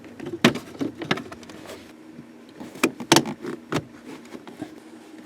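A vehicle trim panel being pulled off by hand: a handful of sharp clicks and knocks, a few seconds apart, as its clips let go and the panel is handled.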